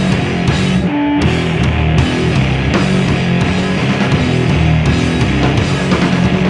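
Punk band playing live: distorted electric guitars over a drum kit with crashing cymbals. About a second in the band stops briefly on one ringing guitar note, then comes back in at full volume.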